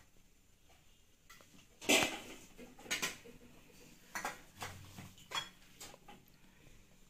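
Jars and their lids being handled on a crowded kitchen shelf: a handful of sharp clinks and knocks, the loudest about two seconds in.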